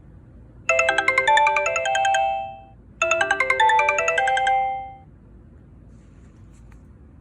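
Sony Ericsson W995 mobile phone playing a ringtone: a quick chiming melody of rapid notes, heard twice, each about two seconds long and fading out, then it stops.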